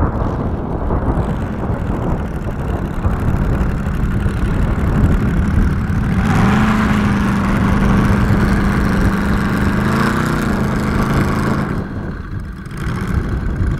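Home-built 220 cc V4 four-stroke model aircraft engine running on the ground, driving a three-blade propeller through a reduction gear. About six seconds in it runs up to a steady higher speed, holds it for several seconds, then drops back near the end.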